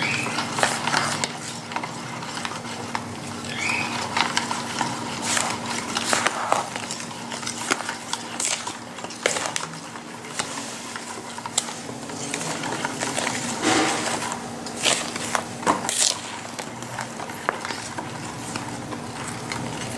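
A spoon stirring and scraping thick flour batter in a stainless steel bowl, with irregular clinks and scrapes of the spoon against the metal. A faint steady hum runs underneath.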